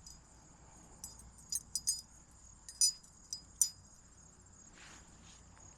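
Steady high-pitched insect trilling, with a handful of brief light metallic clinks and jingles between about one and four seconds in.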